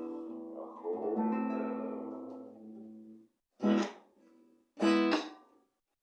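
Guitar chords strummed and left to ring out, fading away; then two short, sharp strummed chords about a second apart close the song.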